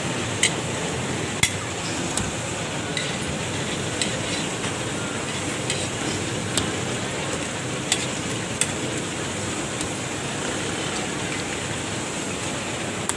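Street food stall sounds: a steady hiss with scattered sharp clicks and taps, irregular and a second or more apart, as paratha dough is pressed and shaped by hand on a stainless-steel counter.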